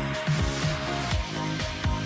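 Music with a steady drum beat, about two beats a second.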